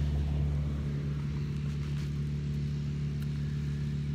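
An engine running steadily at a constant speed: a low, even hum that doesn't rise or fall.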